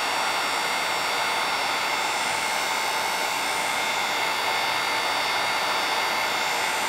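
Electric heat gun running steadily, blowing hot air onto a PLA plastic seam to soften it, with a thin, constant whine over the rush of air.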